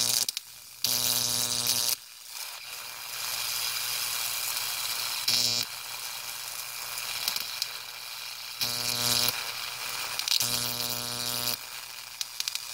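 High-voltage electric arcs from a 15 kV transformer, jumping across rock to a copper plate with a steady hissing crackle. About four times the discharge turns for a moment into a loud electrical buzz, each spell lasting from a fraction of a second to about a second.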